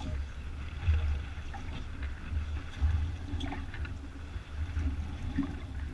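Low, uneven rumbling surges of wind buffeting and water slapping against the hull of a small open fishing skiff, with a few faint clicks and knocks.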